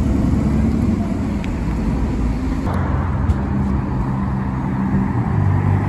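Sports car engine running at low revs with a deep, steady note and road noise as the car drives slowly. At first this is an Aston Martin Vantage's twin-turbo V8. About two and a half seconds in, the sound changes to a different, similar engine and traffic sound.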